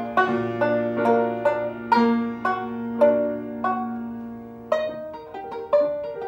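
Banjo and grand piano playing a duet: a plucked banjo melody over held piano notes, changing to quicker, brighter notes about five seconds in.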